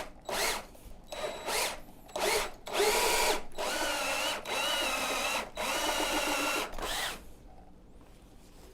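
Power drill with a 1/2-inch bit running in short bursts, then in longer runs with a whine that shifts in pitch, drilling out the rubber flapper check valve inside a water heater's pipe fitting. It stops about seven seconds in.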